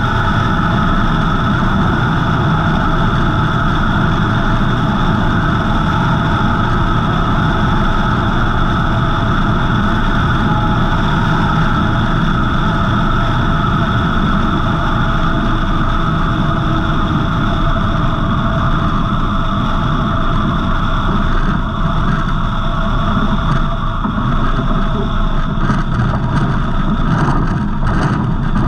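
Savage Outback light aircraft's engine and propeller running steadily with rushing airflow on a low approach, easing slightly in level later on. Near the end a few short knocks come as the main wheels reach the grass strip.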